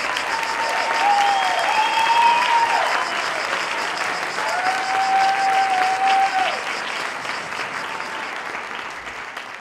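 Audience applauding, with two long cheering calls rising above the clapping, then fading out near the end.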